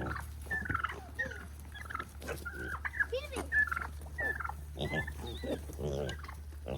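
A flock of farmyard fowl calling, many short overlapping calls, over a steady low hum.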